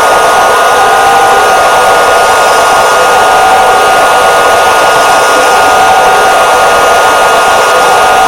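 Small electric motors and gearboxes of RC model farm vehicles running with a steady high-pitched whine.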